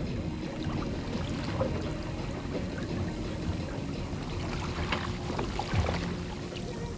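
Water washing and lapping along a Finn dinghy's hull as it sails, with a few sharper splashes about five to six seconds in.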